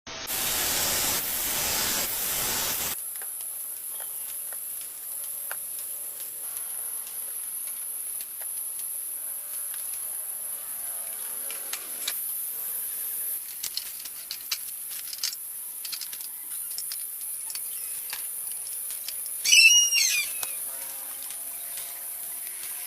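Outdoor ambience: a steady high hiss with scattered light clicks, after a loud rush of noise in the first three seconds. A short bird call comes about twenty seconds in and is the loudest sound.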